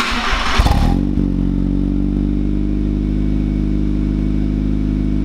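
VW Lupo's swapped-in 1.8-litre 20-valve turbo four-cylinder with a GT30 turbo, heard at the twin tailpipes of its new stainless-steel exhaust. A loud burst in the first second gives way to a steady, even idle.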